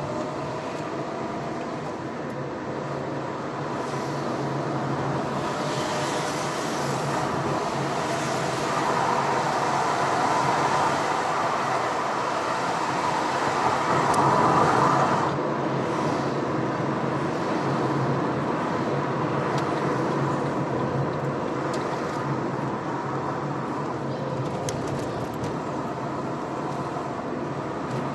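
A car driving through town, heard from inside the cabin: steady engine hum and road noise, swelling louder in the middle and dropping away suddenly about fifteen seconds in.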